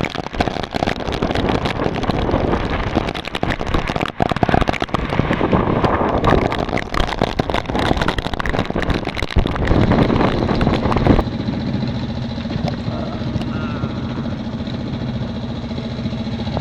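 Rough, gusty rush of wind buffeting the microphone aboard a sailing yacht. About eleven seconds in it cuts suddenly to the steady drone of the boat's inboard engine running under way.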